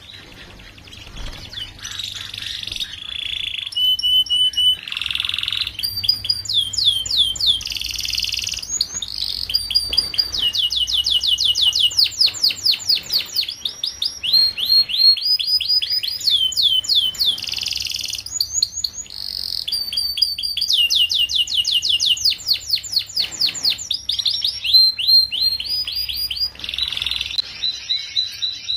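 Young domestic canary singing a continuous song of fast trills: each phrase is a rapid run of the same short chirp repeated many times a second, and the song switches to a new phrase at a different pitch every second or two.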